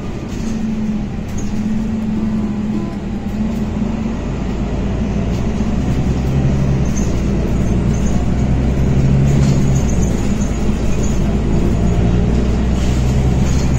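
A moving public-transport vehicle running with a steady low rumble and hum, growing louder through the second half.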